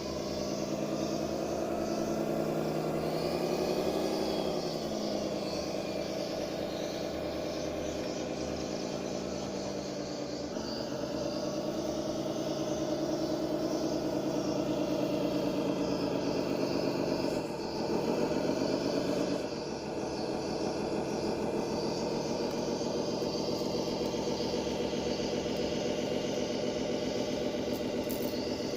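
A 1:12 scale model bulldozer running, giving a continuous engine-like drone whose pitch rises and falls several times, with short dips about ten and about seventeen seconds in.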